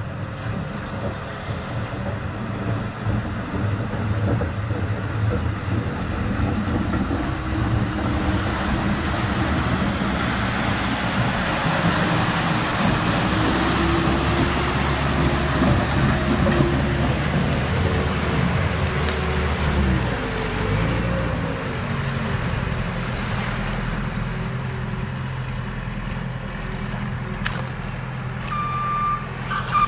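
Tractor engine running under load as it pushes through deep water, with a steady rush and wash of water that swells mid-way; the engine note sinks and wavers about twenty seconds in. A reversing beeper starts near the end.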